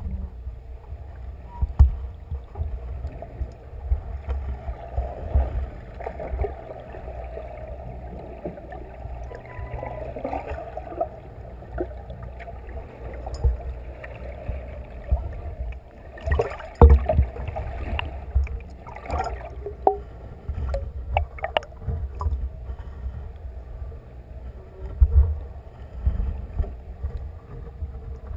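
Muffled underwater ambience picked up by a camera in its waterproof housing: a steady low rumble of moving water with some sloshing. A few sharp knocks come in the second half, likely the housing being bumped.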